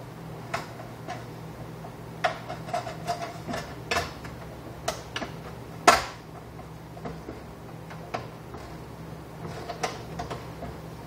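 Sheet-metal cover of a fluorescent light fixture being fitted back over the ballast channel: a string of irregular clicks, knocks and rattles as it is pressed into place, with one louder knock about six seconds in.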